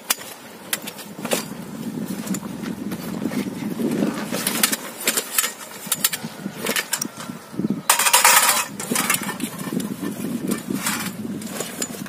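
Rustling and crinkling of a folding frame kayak's fabric hull skin and nylon carry bag as they are pulled out and handled, with scattered clicks and clinks of aluminium frame tubes, over a low steady rumble. The loudest rustle comes about eight seconds in.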